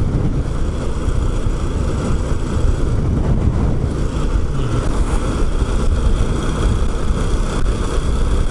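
Honda Super Cub's single-cylinder four-stroke engine running steadily at cruising speed, under heavy wind rush on the microphone.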